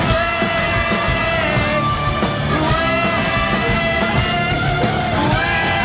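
A live hard rock band playing loud, with distorted electric guitar over bass and drums, and long held notes that bend in pitch.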